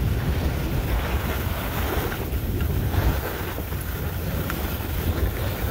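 Wind buffeting the microphone of a skier's camera while skiing downhill at speed, a steady low rumble, with the hiss of skis sliding over groomed snow.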